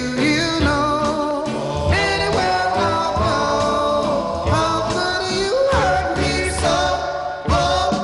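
A 1960s pop record playing: a lead singer's voice over a band.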